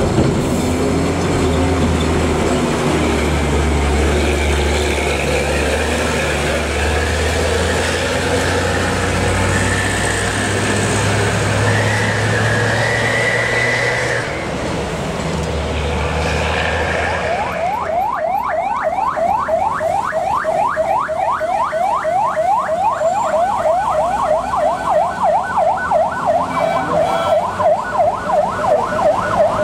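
Heavy diesel truck engine running under load on a climb, then, a little past halfway, an electronic siren starts a fast yelp: rising whoops about two to three a second, from an emergency van with a red roof light bar.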